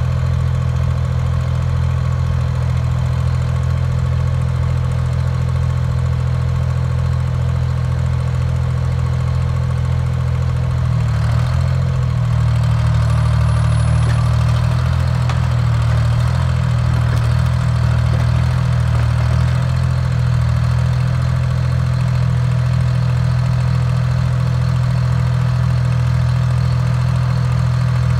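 Link-Belt LS-78 crawler crane's engine running steadily. A little before halfway it picks up and runs a bit harder for several seconds as the crane crawls onto the trailer under load, then settles back.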